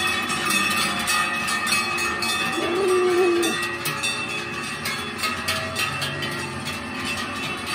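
Many large cowbells worn by a passing herd of Holstein cows clanging and ringing together, without pause, as the cows walk. A brief low wavering call rises out of the bells about three seconds in.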